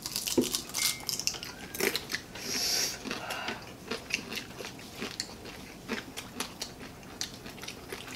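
Close-miked eating: several people biting and chewing fried dried fish and fried rice eaten by hand, with irregular crunches and mouth smacks.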